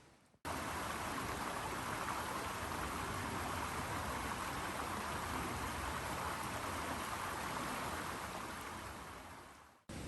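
Steady rain falling, an even hiss with no distinct drops standing out. It cuts in abruptly about half a second in and fades away near the end.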